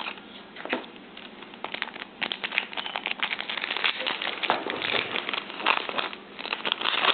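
Crinkling foil wrapper of a trading-card booster pack and cards being handled, a dense, irregular crackle that picks up about two seconds in.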